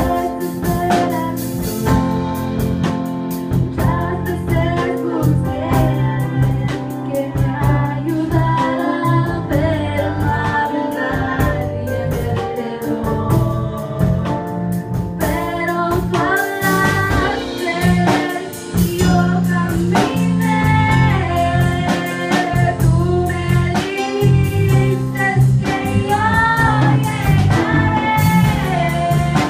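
A teenage girl singing a worship song (alabanza) into a microphone, amplified, over instrumental accompaniment with a steady bass line.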